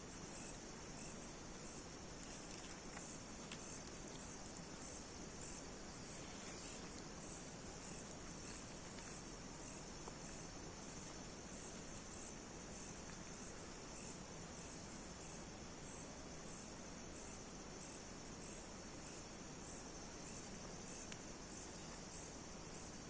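Crickets chirping steadily at night: a faint, continuous high trill made of rapid, evenly repeating pulses.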